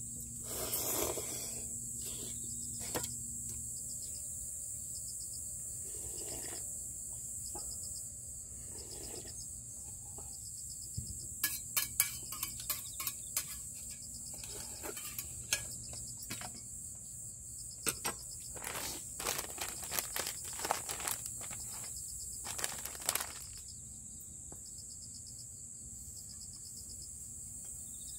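A steady chorus of crickets and other insects chirring, with close slurps of noodles and broth and sharp clinks and taps of a metal bowl and chopsticks in the middle stretch.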